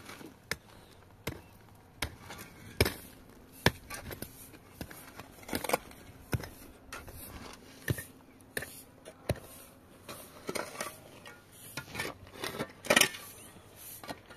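Irregular clicks, knocks and light clinks of objects being handled, with the loudest knock near the end.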